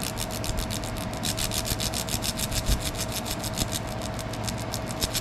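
Laser engraver running an engraving pass: a rhythmic rasping buzz that pulses about ten times a second, over a steady tone.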